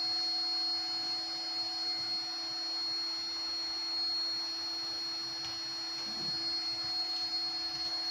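Steady electrical hum with a thin high whine from a powered-up CNC router with an 800 W spindle and its drive electronics, with a faint handling rustle about six seconds in.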